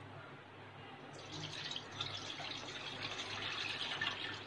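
Milk being poured from a plastic bowl into a metal pan: a steady splashing pour that starts about a second in and grows louder.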